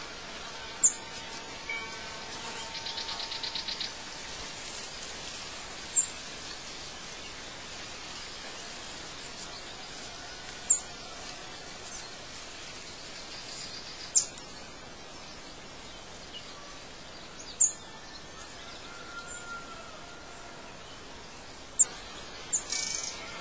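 Night-time nature ambience: a steady hiss with short, sharp, high chirps every few seconds. A brief rapid pulsing buzz, like an insect trill, comes about three seconds in.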